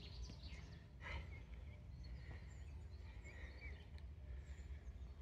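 Quiet outdoor ambience: faint birds chirping here and there over a low steady rumble, with a brief rustle about a second in.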